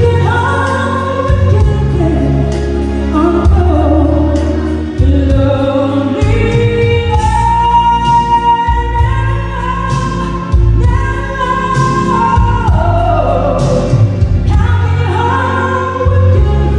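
A solo singer performing live into a microphone over amplified musical accompaniment, holding one long high note in the middle.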